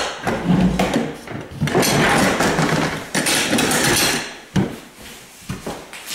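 DeWalt rolling cantilever toolbox being pulled open: its plastic trays slide and rattle for about four seconds, then knock into place with a few sharp clacks.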